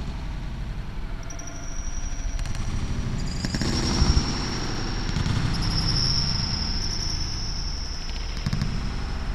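Indoor basketball game: players' running footsteps and a dribbled ball thudding on the gym floor, echoing in the hall, with high sneaker squeaks on the court that come and go.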